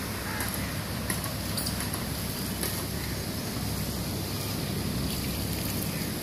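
Outdoor ambience: wind rumbling unevenly on the microphone over a steady rush, with a few faint bird chirps.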